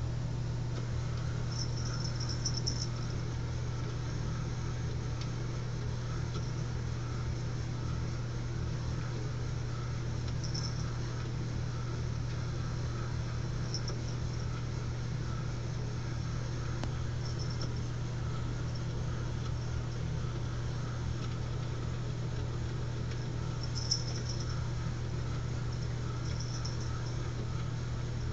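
A small motor in a white dome laser cat toy running with a steady low hum. Brief high rattling sounds come a few times over it.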